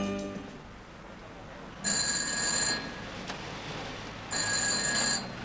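Taxi-rank call telephone ringing twice, each ring about a second long and two and a half seconds apart.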